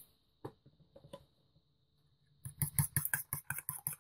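A spoon beating raw eggs in a bowl. A few scattered light taps come first, then about two and a half seconds in it breaks into a fast, even clatter of strokes, about seven a second.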